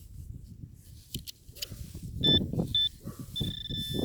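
Metal detector beeping on a metal target: two short high beeps, then a steady held tone starting near the end, over wind noise and rustling in the dirt.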